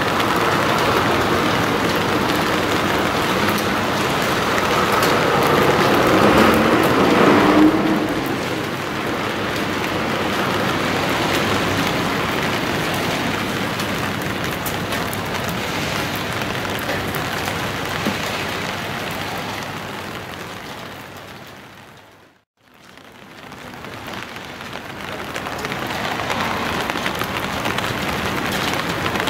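Steady rain falling on a wet street, a constant hiss and patter. A vehicle's engine swells and passes in the first several seconds, then drops away. About three-quarters of the way through, everything fades briefly to silence and fades back in.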